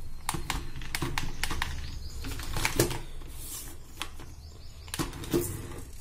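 Battery-powered remote-control toy quad driven in short spurts: a brief whir of its small electric motor and a run of irregular plastic clicks and clatter.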